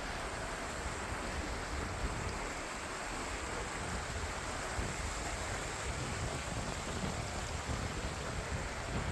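Creek water flowing over rocks: a steady rushing noise.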